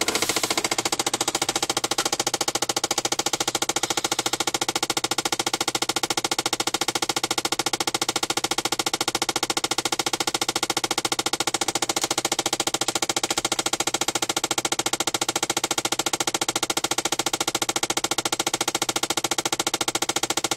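2006 Chevy Impala making a rapid, steady clicking from inside the car, which the owner links to the air-conditioning system. It is heard as a temporary fault that sets in after a remote start or a heat-to-air change, and is described as very annoying.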